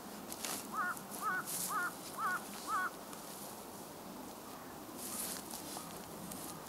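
A crow cawing five times in quick succession, about two calls a second. Faint scrapes of a hoe working soil come in between.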